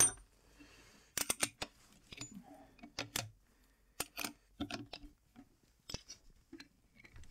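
Scattered light metal clicks and clinks from an angle grinder's disc being fitted on its spindle and its flange nut turned on and tightened with a pin spanner.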